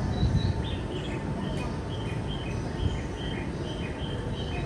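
Railway platform ambience: a steady low rumble with a regular series of short, high chirps, about two or three a second, like a small bird calling.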